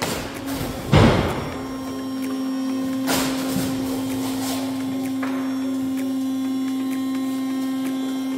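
Hydraulic power unit of a tilting house-prefabrication assembly table starting with a thump about a second in, then running with a steady hum while the cylinders raise the table top.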